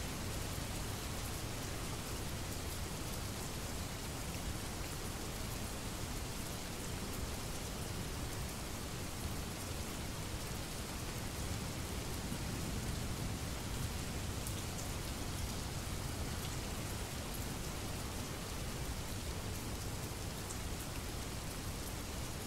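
Steady rain falling, an even dense patter with scattered sharper drop ticks.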